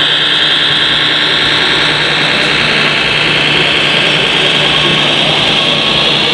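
Scale radio-controlled MAN 8x8 hook-lift truck driving with a load of soil: a steady high whine from its electric drive and gearbox that rises slightly in pitch, over a low steady hum.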